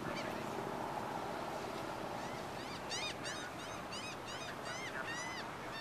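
A bird calling in a rapid series of about ten short, high, squealing notes, roughly three a second, starting about halfway through, over steady boat and wind noise.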